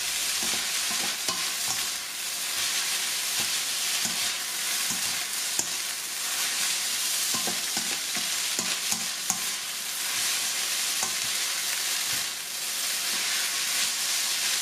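Rice noodles, egg and Chinese cabbage sizzling in a hot oiled wok as they are stir-fried, a steady frying hiss with many small clicks and scrapes of a plastic spatula against the pan.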